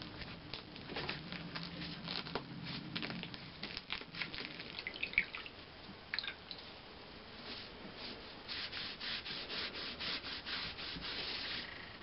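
Gloved hand rubbing and pressing on the damp paper facing of a mosaic section bedded in adhesive, a run of short scratchy rubbing strokes. The strokes come quicker and more evenly in the last few seconds.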